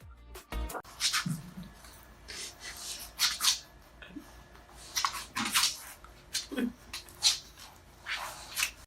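A dog making irregular short noisy bursts, with a few faint, brief low grunts in between.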